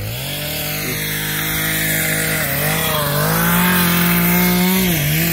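Chainsaw revving up at the start and then running at full speed as it cuts through a log. Its pitch dips briefly twice as the chain loads in the wood.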